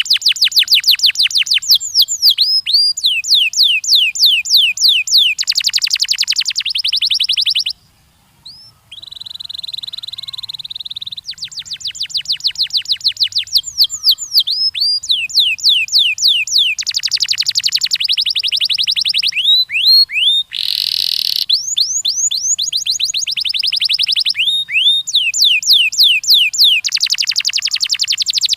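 Canary singing a long song of fast trills of rapidly repeated notes mixed with rolls of down-slurred notes, high-pitched and loud. The song breaks off briefly about eight seconds in, then resumes with a held whistle-like note before the trills return.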